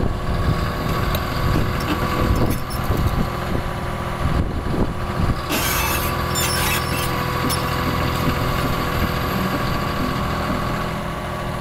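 Caterpillar 320E excavator's diesel engine running steadily, with a brief hiss about six seconds in.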